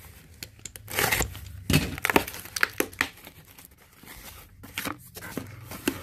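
A small cardboard box being slit open with a box cutter and torn open by hand, with cardboard and packaging rustling and crinkling. The scrapes and rips come unevenly, thickest in the first three seconds, with a few more near the end.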